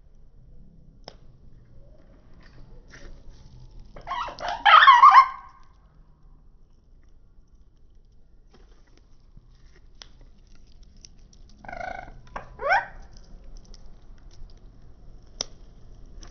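Pet lovebirds calling. A loud burst of harsh chatter comes about four seconds in, and a shorter call with quick rising notes comes about twelve seconds in, with a few light clicks between.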